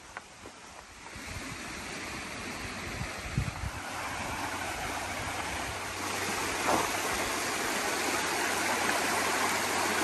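Rushing water of a creek, a steady even rush that grows steadily louder from about a second in.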